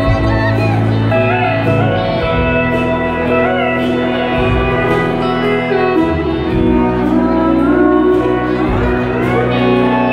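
Live band playing an instrumental passage led by a pedal steel guitar, its notes sliding and bending up and down over bass and steady drums.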